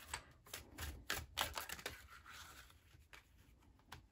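Tarot cards being shuffled and drawn from the deck: faint, crisp snaps and slides of card stock, most of them in the first two seconds, then a couple of single clicks near the end.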